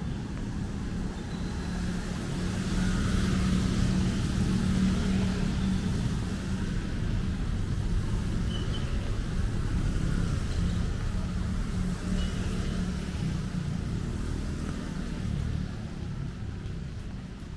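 A motor vehicle's engine running steadily, a low hum that grows louder over the first few seconds and fades near the end.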